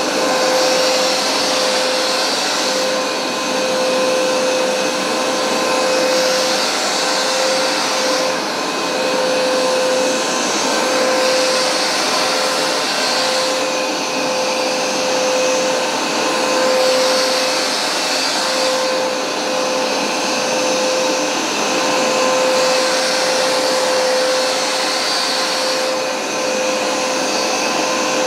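Hoover SmartWash Pet carpet cleaner running: a steady motor whine under a rushing suction hiss that swells and eases every two to three seconds as it is pushed and pulled over the carpet.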